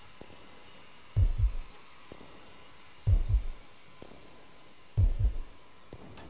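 A slow heartbeat sound effect: three deep double thuds, lub-dub, about two seconds apart, with a faint click between the beats.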